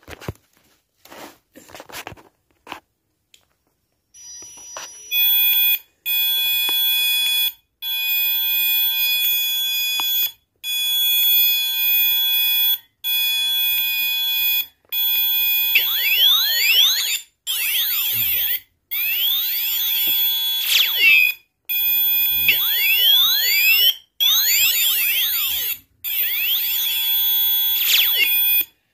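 Small bare speaker driver on a little amplifier circuit board playing loud, shrill electronic tones in blocks of about two seconds with short breaks between them. From about halfway, many sweeping rising and falling pitches join in.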